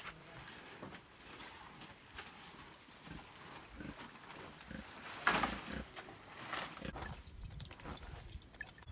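A pig making low, faint noises, with one louder call about five seconds in.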